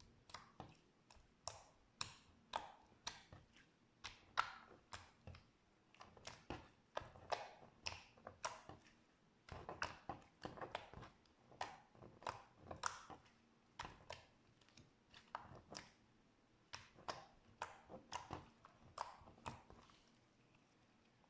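Slime being squished and pressed by hand, giving a quick run of short sticky crackles and pops, about two to three a second, with a brief pause about half-way through.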